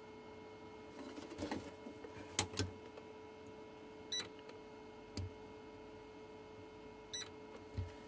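Small clicks and taps, about half a dozen spread out, as a short length of wire and tools are handled on a workbench. A faint steady hum runs underneath.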